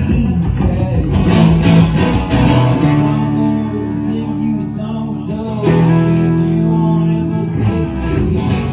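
Live band music led by guitar, busy at first, then settling into long held chords for the rest of the passage.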